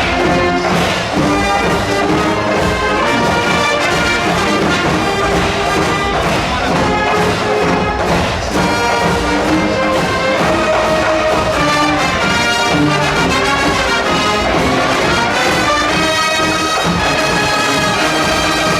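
Large high school wind band playing loud, brass-led music, with trumpets and trombones to the fore.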